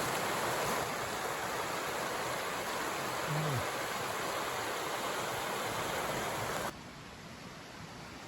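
Steady rush of a fast-flowing river, which drops abruptly to a quieter level about two-thirds of the way through.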